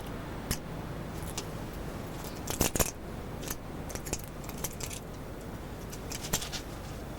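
Hard objects being handled: irregular sharp clicks and clinks, with a louder cluster about two and a half seconds in, over a steady low hum.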